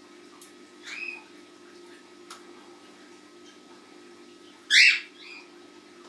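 Cockatiels calling: a short rising-and-falling call about a second in, then a much louder, noisier call near the end, followed at once by a brief softer one.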